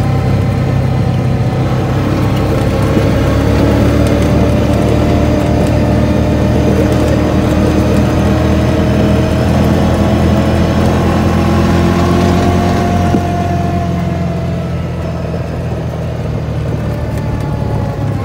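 Off-road side-by-side's engine running under steady throttle, heard from inside the cab, with a low drone and tyre rumble on gravel. The engine pitch climbs slowly, then eases off and the sound drops a little about thirteen seconds in.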